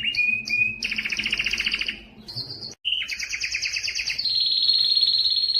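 Timbrado canary singing: fast rolling trills alternate with held, steady whistled notes at several pitches. The song breaks off abruptly for a moment just under three seconds in, then resumes.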